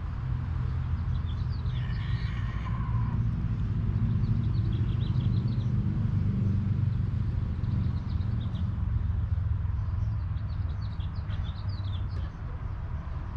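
Birds chirping in short high calls over a steady low rumble. About two seconds in there is one longer call that falls in pitch at its end.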